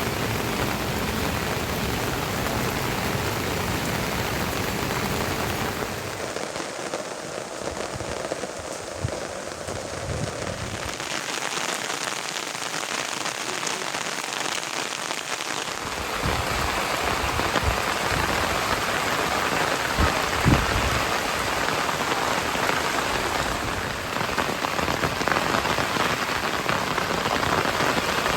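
Heavy rain falling steadily, a dense hiss with a few short low thuds. The sound changes abruptly several times.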